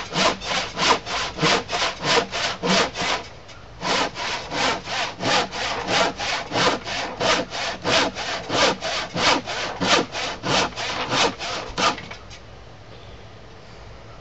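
Handsaw crosscutting through the end of a thick glued-up workbench top, in steady strokes about three a second. There is a brief pause about three seconds in, and the sawing stops about twelve seconds in.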